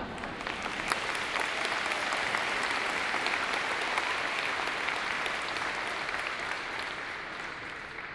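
Audience applauding, the clapping building over the first second or two and tapering off near the end.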